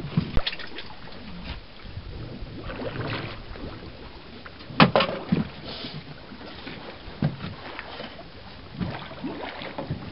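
Water sloshing around a work barge, with scattered knocks and clicks on board; the loudest is a single sharp knock about five seconds in.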